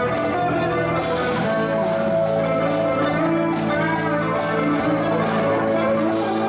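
Live band playing an instrumental tune on keyboard, electric guitars and drum kit, with no singing.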